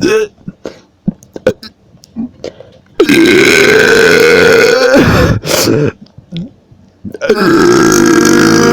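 Loud, deep soda-like burps: a short one at the start, a long one of about two seconds from three seconds in, and another long one starting about seven seconds in, with small gulps and clicks between. He calls them soda burps and puts them down to a bad combination of snacks, not soda.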